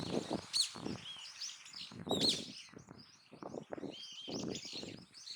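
Small birds chirping and calling, with many short high chirps and trills, over intermittent low noise.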